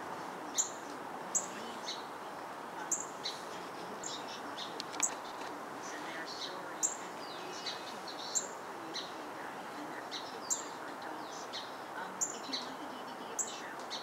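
Northern cardinal giving sharp, high chip calls, a dozen or so at irregular intervals, over steady background noise.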